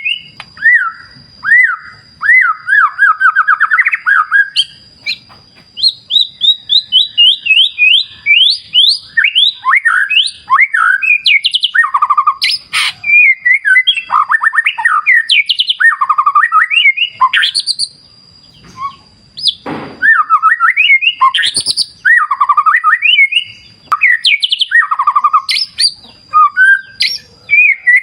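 White-rumped shama (murai batu) singing almost without pause: a varied song of quick whistled trills and rising and falling phrases. A thin, steady high tone runs behind it.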